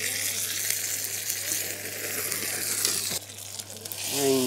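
Mustard seeds and curry leaves spluttering and sizzling in hot oil in a small metal tempering ladle, a dense crackle that cuts off about three seconds in.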